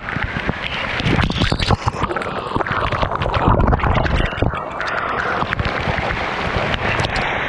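Strong waterfall current rushing and splashing close to the microphone, with irregular knocks and low rumbles throughout.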